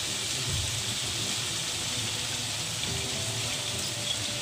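Chili paste frying in oil in a wok, sizzling steadily as sliced vegetables are tipped in; the paste is cooked to the stage where its oil separates.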